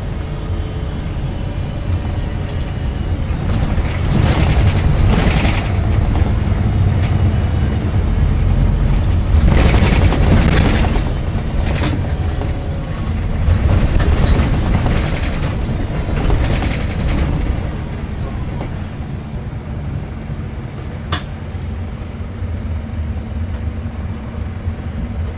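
Scania K270UB Omnilink bus heard from inside the cabin on the move: a steady low rumble from its five-cylinder diesel engine and the road, with several louder spells of rattling and knocking through the middle, then quieter and steadier near the end.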